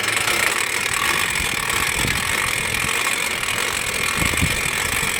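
An engine running steadily while a boat is hauled up out of the sea.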